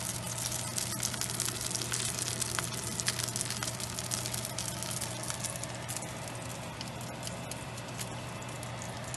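Buns frying in hot oil in a nonstick skillet: a dense sizzle full of small pops and crackles, easing a little after about five seconds, over a low steady hum.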